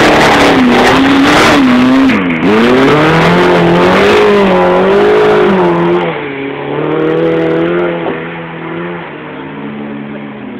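Car engine revving hard under load as a classic trial car pulls away up a muddy woodland track. The revs rise and fall, dipping sharply about two seconds in, and the engine fades over the last few seconds as the car moves away.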